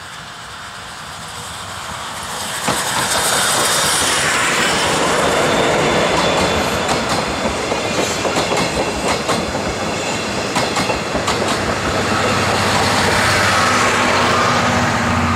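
Steam locomotive C58 363 and its passenger coaches passing close by, getting louder over the first few seconds and staying loud as the train goes past. The wheels clack sharply and often over the rail joints as the coaches roll by.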